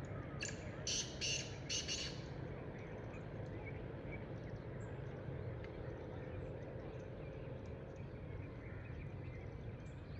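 Black francolin calling: four loud, harsh notes in quick succession within the first two seconds, followed by faint chirps of other birds over a steady low background hum.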